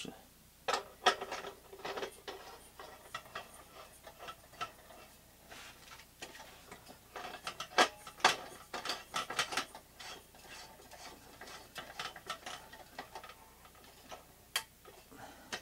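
Irregular clicking and light ticking of metal threads and plastic as a gas adapter is screwed together with a one-inch-thread propane cylinder and a Campingaz Bluecat heater. A few sharper knocks stand out, two close together about eight seconds in.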